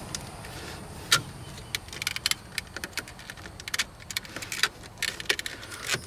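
Irregular small plastic clicks and taps as a flat-blade screwdriver pries at the tabs of a 2010 Chevy Traverse's power-window master switch to release it from its plastic bezel, with one sharper click about a second in.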